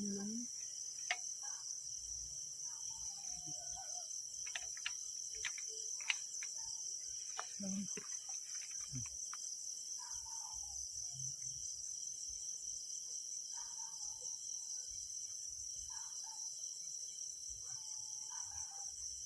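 Crickets chirring steadily in a high, finely pulsing trill, with a few faint clicks scattered through the first half.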